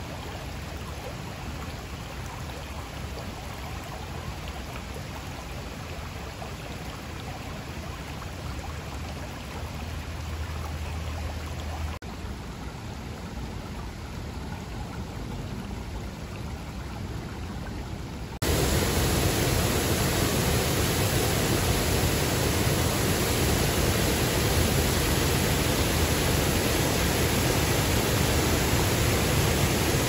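Creek water rippling and running over shallow rocks, a steady rush. About eighteen seconds in it switches abruptly to the louder, fuller roar of water pouring over a low dam.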